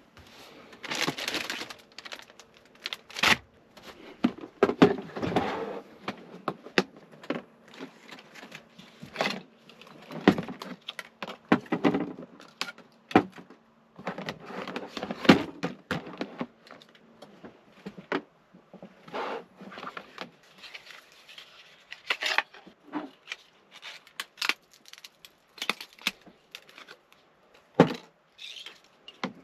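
Irregular rustling and crinkling mixed with many small clicks and knocks: objects and packaging being handled close to the microphone, as in preparing food in a small cabin.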